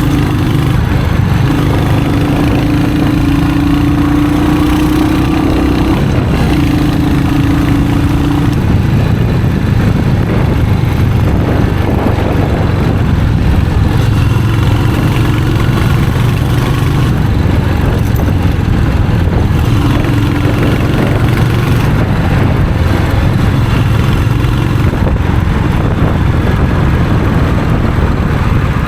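Royal Enfield Hunter 350's single-cylinder engine running steadily. A steady higher tone joins it for several seconds near the start and briefly again about twenty seconds in.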